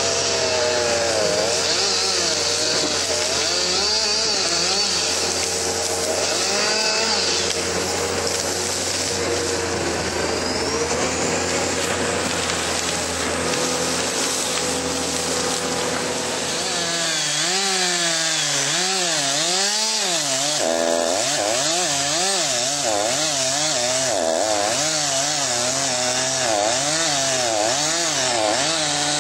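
Chainsaw running and cutting through pine wood, its engine pitch rising and falling again and again as it revs and loads in the cut. A steady low hum runs underneath until about two-thirds of the way through.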